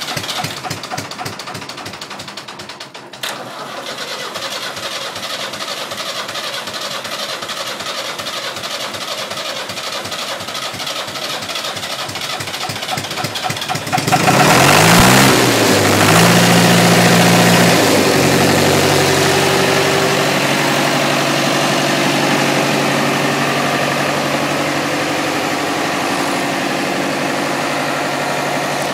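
David Brown 990 tractor's four-cylinder diesel running soon after a cold start. About fourteen seconds in it is revved up, the pitch rising, then it holds at a faster, louder, steady speed.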